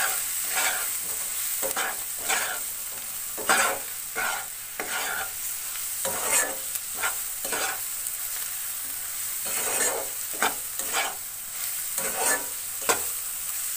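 Onions, tomatoes and ground spices sizzling steadily in hot oil in a non-stick kadai, with a spatula stirring and scraping the pan in irregular strokes.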